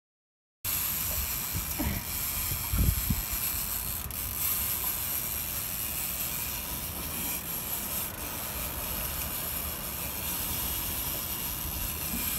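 Steady outdoor rushing noise of wind and river water on an open boat, with a few low thumps about two to three seconds in.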